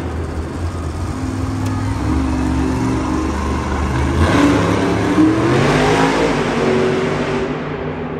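Monster truck's supercharged V8 engine running and revving as the truck drives off across the dirt track, its pitch climbing about four seconds in and again near the end.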